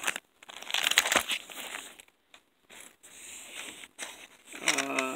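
Handling of a CD and its plastic jewel case: rustling and clicking, busiest in the first two seconds with a cluster of sharp clicks about a second in, then sparser.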